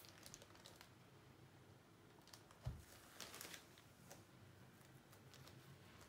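Near silence with faint handling noises as hands let go of a canvas on a cake spinner: a few soft crinkles and ticks, and one dull low thump a little under three seconds in.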